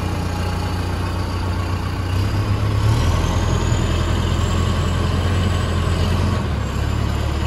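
John Deere 310K EP backhoe loader's diesel engine running steadily, getting louder about two to three seconds in. A faint high whine rises in pitch over the first few seconds.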